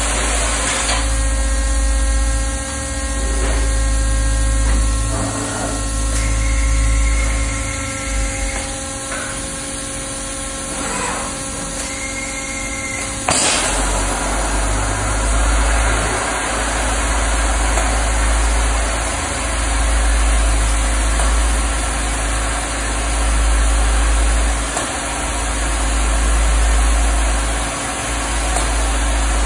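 Structural-steel coping machine cutting a steel channel with its cutting torch, over a constant low machine rumble. For the first half several steady whining tones sound. About 13 seconds in they give way abruptly to an even rushing hiss.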